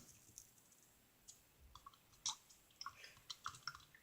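Faint, scattered sticky clicks and small wet squishes of homemade glue-and-borax slime being worked.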